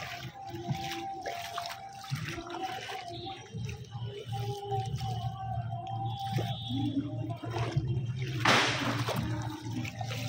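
River water splashing and sloshing as people swim and wade, with a louder rush of water near the end. Faint voices carry across the water.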